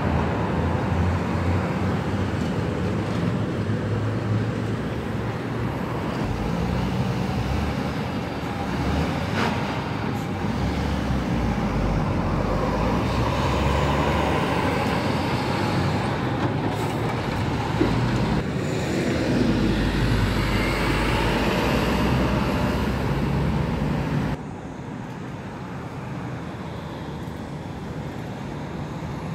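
Street traffic with heavy vehicles such as trucks driving by, their engines running as a steady rumble. The sound drops suddenly to a quieter traffic hum near the end.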